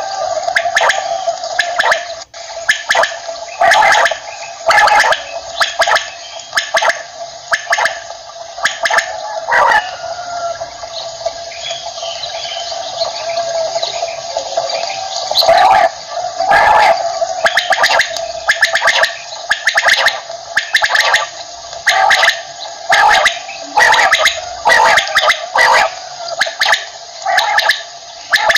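Common quail (batair) calling over and over: many short, sharp calls in quick runs, with a steady hum underneath.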